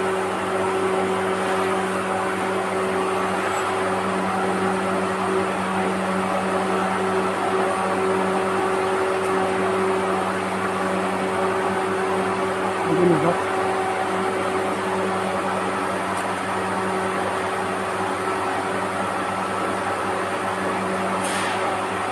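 Steady electrical hum and buzz of a BSS-040 bandsaw blade butt welder as its transformer passes current through the clamped blade, heating and annealing the fresh weld.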